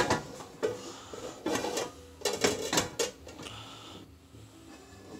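Stainless-steel pots and a frying pan knocked and slid across a gas stove's cast-iron grates, several clanks and scrapes in the first three seconds, then quieter.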